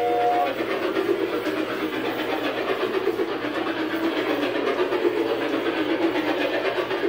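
G scale model train running on its track, a steady rattling rumble of wheels and motor. A chord-like whistle of several steady notes cuts off about half a second in.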